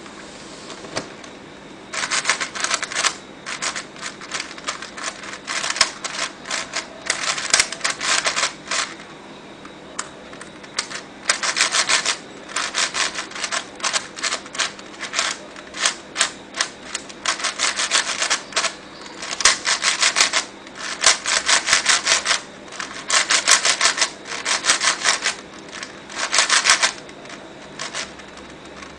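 A MF8 mini DaYan 4x4 plastic speed cube being turned fast by hand: its layers click and clack in rapid runs of turns with short pauses between. The cube is an unmodified factory sample, not broken in.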